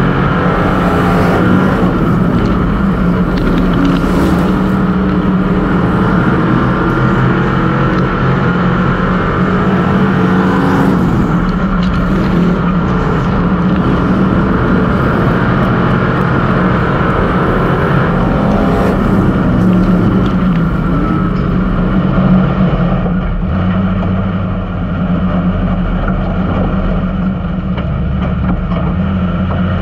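Street stock race car's V8 engine heard from inside the cockpit, running hard around a dirt oval, its pitch rising and falling through the corners. About three quarters of the way through it settles to a lower, steadier running as the car slows.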